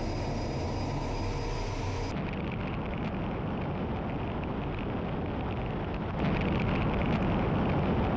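Jet engine noise and rushing air heard aboard a Su-30SM fighter during takeoff and climb-out: the sound of its twin AL-31FP turbofans. It is a steady, dense roar with an edit cut about two seconds in, and it grows louder about six seconds in.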